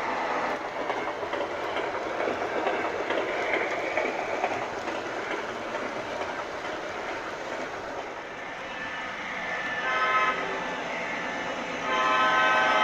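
O-gauge model diesel locomotive running with its onboard sound system: a steady engine rumble with the rolling of the cars on the track. There is a short horn blast about ten seconds in, and a louder, longer horn blast starts near the end.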